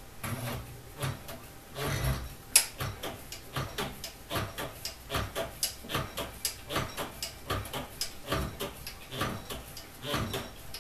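Ithaca Mag-10 shotgun's steel recoil spring tube being hand-threaded onto its fine threads: a run of light metallic clicks and scrapes, about three a second, as the tube is turned.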